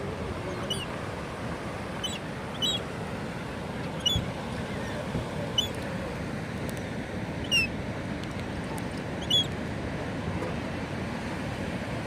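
Small bird chirping: short, high notes that drop in pitch, about seven of them a second or two apart, over a steady background rush.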